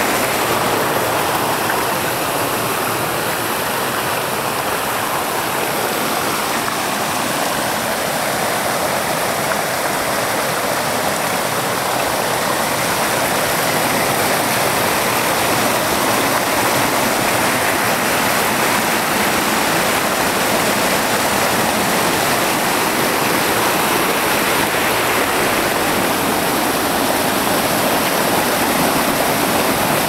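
Mountain stream cascading down a narrow channel between boulders: a steady rush of falling and splashing water.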